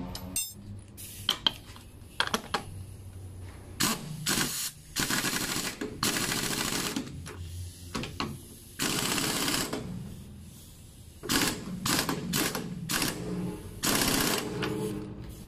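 Pneumatic impact wrench hammering in several bursts of a second or two as it runs the top nut onto a front strut mount, with sharper clicks and knocks of tools and metal between the bursts.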